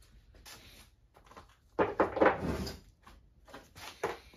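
Clatter of hard objects being handled and knocked about, a rattling, scraping burst for about a second around two seconds in, then a couple of shorter knocks near the end.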